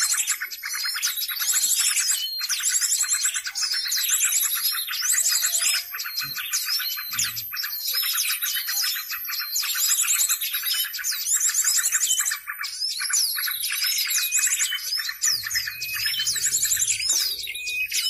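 Recorded bird song played on a loop as a trapping lure: rapid high trilling phrases with chirps, repeating about once a second.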